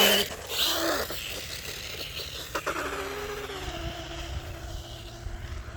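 Remote-control toy car running: its small electric motor whirring and its wheels scraping over the ground, with a sharp click about two and a half seconds in.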